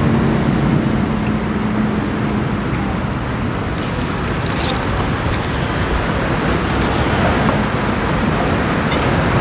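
Steady road traffic noise from a busy street, with a low engine hum in the first couple of seconds. A few light clicks near the middle, as metal tongs handle the grilled fish.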